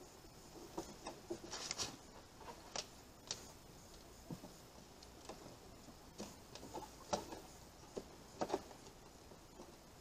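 Faint, irregular clicks and taps, with a brief scrape about a second and a half in: plastic PEX tubing being handled and pressed down onto a painted plywood board.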